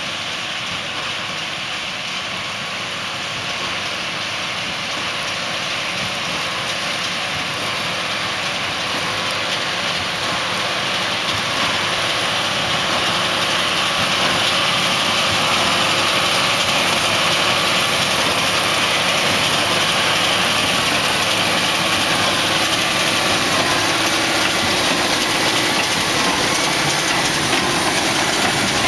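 John Deere 7730 tractor's six-cylinder diesel running steadily under load while pulling a working Massey Ferguson 187 small square baler. The sound grows gradually louder as the rig approaches and passes close by.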